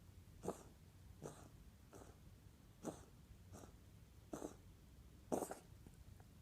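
A pet animal coughing in short, faint bursts, six in a few seconds, with the last one the loudest.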